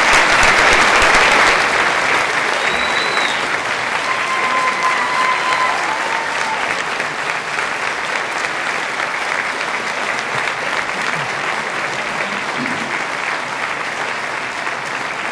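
An audience applauding, loudest in the first couple of seconds and gradually dying down.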